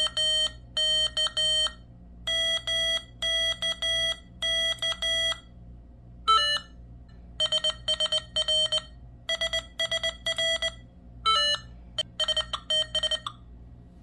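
Morse code sidetone beeping from a Morserino-32 trainer's speaker: a word sent in dits and dahs at one steady pitch, then the same word keyed back on an iambic paddle. Between words come short beeps at a different pitch, the trainer marking each answer right or wrong.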